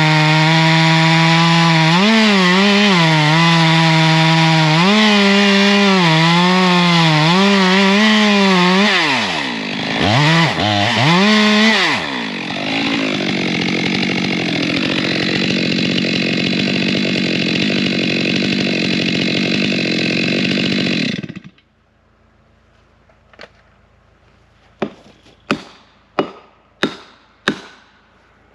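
Chainsaw cutting through wood, its engine pitch dipping and rising under load, then wavering and running on more evenly before it shuts off abruptly. A series of sharp strikes follows, coming faster near the end, typical of a hammer or axe driving a felling wedge into the cut.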